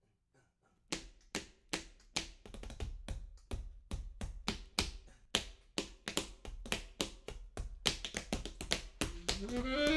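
Jazz tap shoes striking a wooden floor in a rhythmic solo, sharp taps several a second, starting about a second in. Near the end a saxophone comes in with a rising note over the taps.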